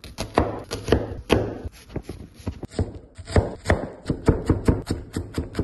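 Chef's knife chopping half an onion on a wooden cutting board: a run of sharp knocks of the blade on the board, irregular at first, then quickening to about five a second in the last two seconds.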